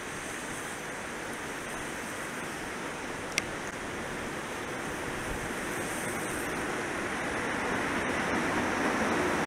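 Freight train of tank wagons behind a JR Freight EH200 twin-unit electric locomotive rolling closer, its rumble growing steadily louder over a constant hiss of rain. One sharp click about a third of the way in.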